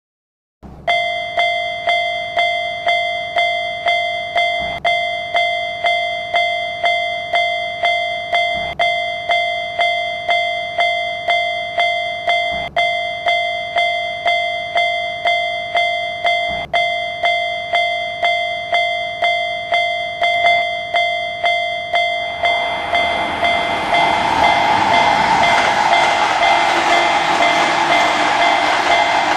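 Railroad crossing warning alarm ringing in a steady, even rhythm, a bit under two rings a second. About 22 seconds in, the rushing, rumbling noise of a passing train joins and continues under the ringing.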